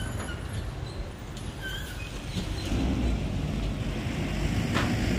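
A motor vehicle's engine running on the road, a low rumble that grows louder over the second half.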